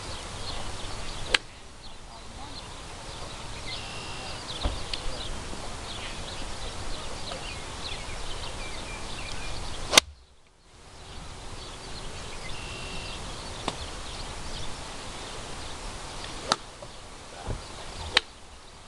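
A golf wedge striking a ball off grass turf once, a single sharp crack about halfway through. A few fainter sharp clicks come at other moments, over a steady low rumble of wind on the microphone and faint chirps.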